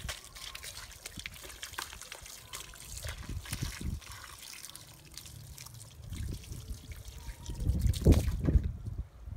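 Water from a hose trickling and splashing onto a wet rug and bare feet, with a louder splash onto the concrete near the end before the flow dies away.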